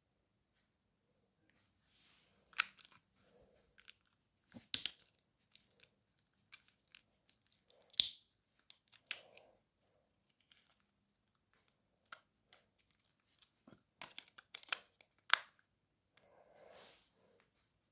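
Irregular sharp clicks and short rustles, as small plastic parts are handled, loudest about eight seconds in.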